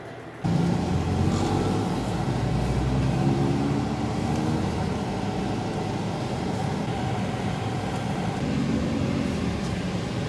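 Steady road and engine noise inside a moving car's cabin, starting abruptly about half a second in.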